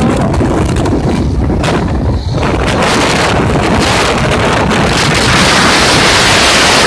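Wind buffeting the microphone on a moving motorcycle, with the bike's running and road noise underneath; the rush grows louder about five seconds in.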